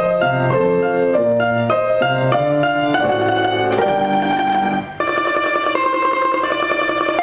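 A plucked string instrument plays a Russian folk-song arrangement over lower accompanying notes: quick separate plucked notes at first, then from about five seconds in, long held notes played in tremolo.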